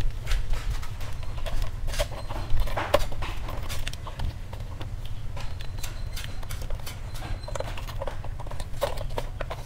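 Bundles of insulated electrical wire being handled and pushed into a sub-distribution board box: irregular taps, knocks and rustles of the cables against the box and breakers, over a low steady rumble.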